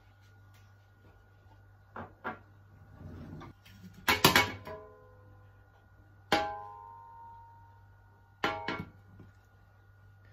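A metal grill pan knocked and shifted on a glass-ceramic hob: a couple of light clicks, then two sharp clanks about two seconds apart that ring on briefly, and a few more clicks near the end.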